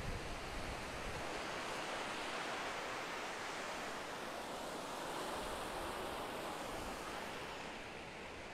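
Mediterranean surf: small waves breaking and washing up a sandy beach, a steady rushing wash that eases a little near the end.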